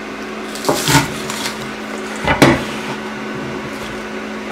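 Kitchen counter handling: a plate and a wooden chopping board knocked and set down, giving a few short knocks, the loudest about two and a half seconds in, over a steady low hum.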